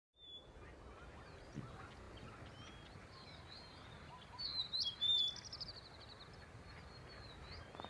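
Small birds chirping and calling in short high notes, with a louder run of quick repeated notes about halfway through, over a faint steady background hiss.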